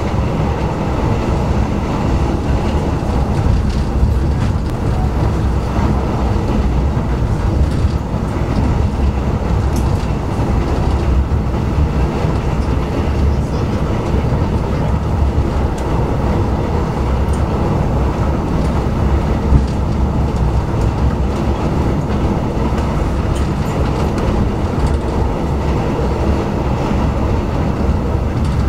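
Malayan Railway passenger train running along the track: a steady, continuous rumble with a few faint clicks of the wheels over the rails.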